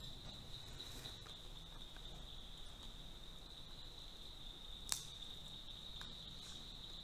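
Near-quiet room with a faint, steady high-pitched tone, and a single sharp click about five seconds in.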